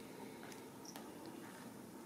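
Quiet room tone, with one faint click about a second in.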